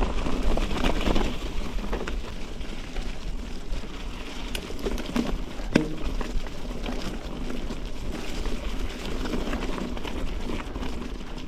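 Mountain bike rolling over a wet, muddy trail: a steady rush of tyre noise and bike rattle, with wind rumbling on the helmet camera's microphone, and one sharp knock about six seconds in.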